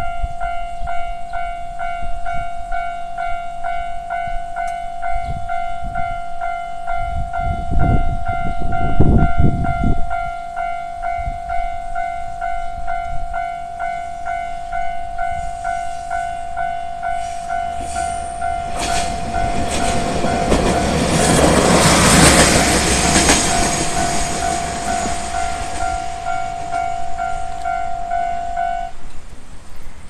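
Japanese level-crossing warning bell ringing its repeated electronic clang as a train passes through. The passing is a swelling rush of train noise that peaks midway through the second half. There are loud low rumbles around eight to ten seconds in. The bell stops about a second before the end as the barriers begin to lift.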